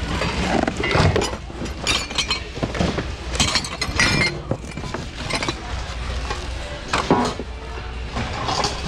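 Glassware and other hard items clinking and knocking together in irregular bursts as they are rummaged through and handled in a bin, over a steady low background hum.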